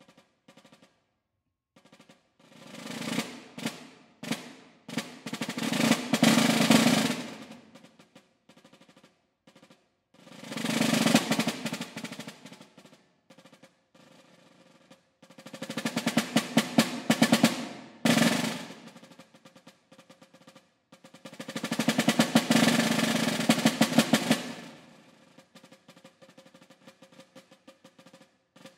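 Orchestral snare drum played with medium hornwood sticks, its head dried out by a leather muffler. It plays an etude of about five rolls that swell loud and fade away, with soft, sparse strokes between them and near the end.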